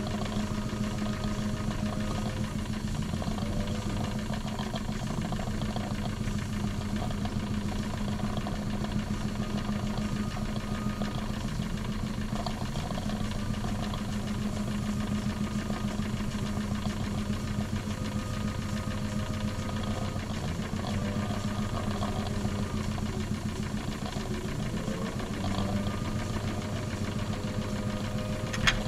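Wilesco D21 model live-steam stationary engine running steadily at speed, its piston and flywheel going with a rapid, even mechanical beat. A few sharp clicks come near the end.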